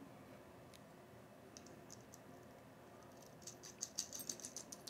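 Faint small metallic clicks and ticks of nuts and jumper bars being handled on a compressor's terminal studs. A few isolated clicks come in the first two seconds, then a quick irregular run of them in the last second and a half.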